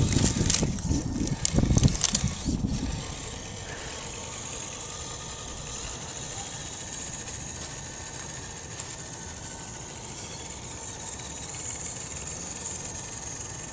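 Axial SCX10 RC crawler's electric motor and gears whining faintly and steadily as it drives out across the frozen pond, with a loud low rumble and a few clicks in the first three seconds.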